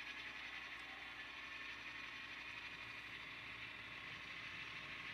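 Faint, steady running sound of an HO scale model GP9 diesel locomotive moving slowly along the track.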